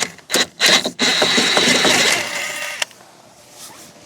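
Ratchet wrench working a nut on the front suspension. A few separate clicks come first, then about two seconds of fast, continuous ratcheting that stops suddenly.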